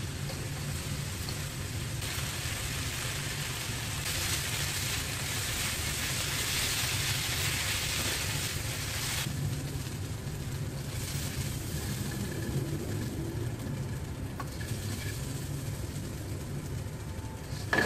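Corn, sausage and vegetables sizzling in a wok as they are stir-fried, over a steady low hum. The sizzle is loudest for several seconds in the middle and drops away fairly suddenly about nine seconds in.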